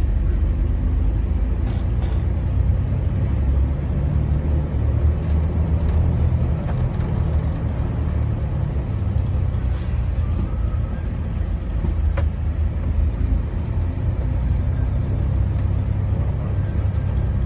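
Tour bus engine and road noise heard from inside the cabin as the bus drives slowly: a steady low rumble.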